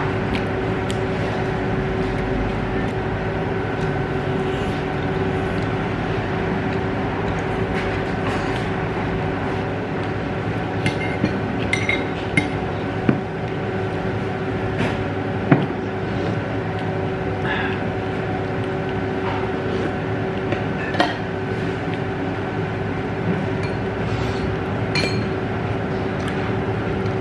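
Steady hum of a small dining room, with scattered sharp clinks of chopsticks and dishes, a handful of them in the second half.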